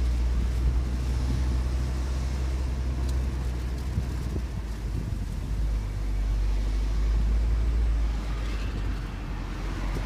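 BMW convertible driving, heard from inside the cabin: a steady low rumble of engine and road noise.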